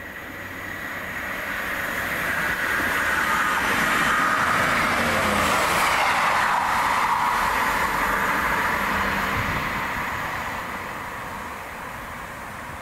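Train passing through the station at speed: its noise builds, peaks midway and fades as it goes by, with a whine that drops in pitch as it passes.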